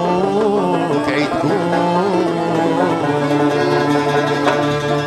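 Instrumental passage of traditional Algerian ensemble music: a plucked-string melody from oud and banjo.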